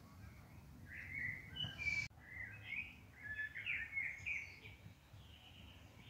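A small songbird singing a quick run of twittering chirps, starting about a second in and fading out past the middle, over a steady low background rumble.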